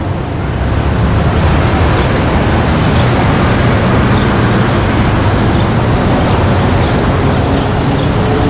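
Busy street traffic: a steady, dense rumble of car engines and tyres, rising in the first second and then holding level.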